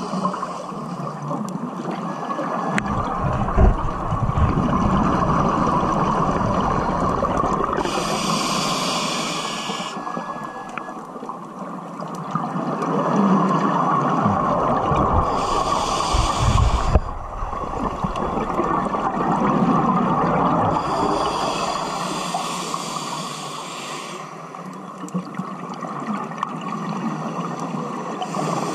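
Scuba regulator breathing underwater: a hissing inhale through the demand valve about every six to seven seconds, and between the inhales the low rumble of exhaled bubbles, over a steady underwater noise.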